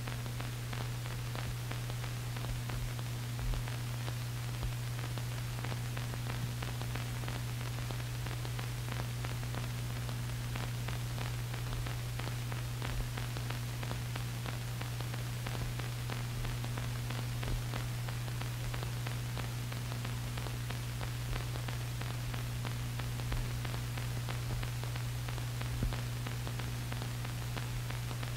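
Steady hiss and low hum of an old film soundtrack, with faint scattered crackles; no distinct sound of the work on the wheel is heard.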